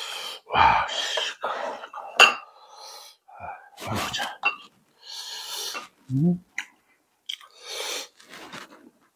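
Close-up eating sounds: irregular chewing and slurping with sharp breaths through the nose and mouth, and a clink now and then.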